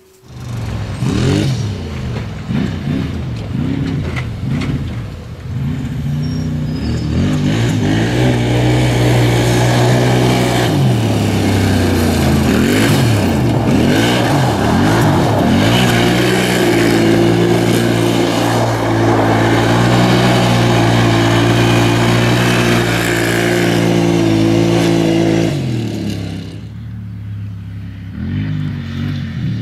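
Supercharged Arctic Cat Wildcat 1000's V-twin engine revving hard, its pitch rising and falling repeatedly as the side-by-side spins its tyres on gravel. It then holds a steady high-rev note for several seconds, fades as the machine drives away about 26 seconds in, and revs up again near the end.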